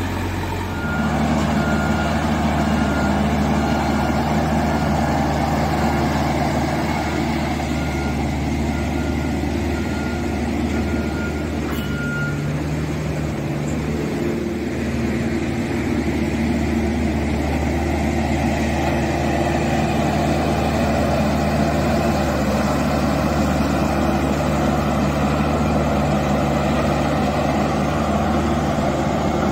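Diesel engine of a JCB backhoe loader running steadily, with a short warning beep repeating a little over once a second for the first twelve seconds or so. After a change, the steady running of a Dynapac double-drum road roller's diesel engine takes over.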